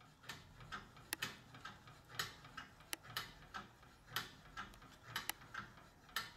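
Antique 19th-century Joubert Tiersot pedal-powered scroll saw running free with no wood in it: the treadle, flywheel, crank and connecting rod drive the blade clamp up and down. The sound is faint, light mechanical clicking, with a sharper click about once a second.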